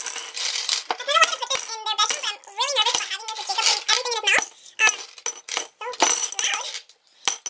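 Small decorative rocks clinking as they drop into a mason-type jar, in scattered clinks, while a baby babbles.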